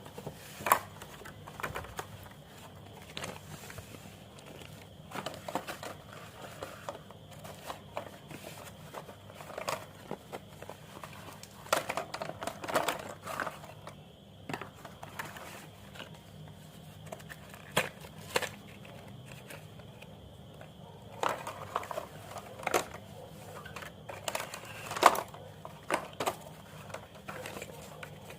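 Irregular crinkling, clicks and sharp cracks from handling white slate pencils and their packs, a few cracks much louder than the rest.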